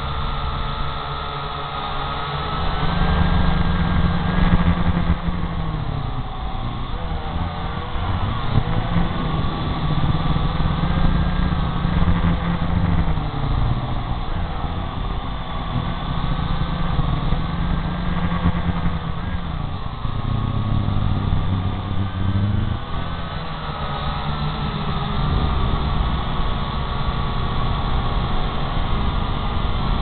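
Syma X8 quadcopter's motors and propellers heard from its onboard camera: a steady whine that wavers in pitch as the drone manoeuvres, over a low rumble that swells and fades every few seconds.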